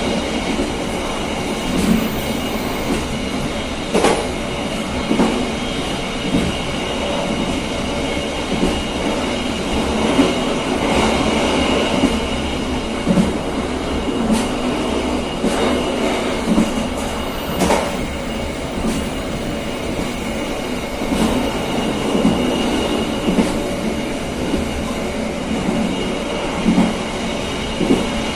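KA Serayu passenger train running at speed on the track: a steady rolling rumble of wheels on rail, with knocks every second or two as the wheels cross rail joints, over a faint steady high ringing.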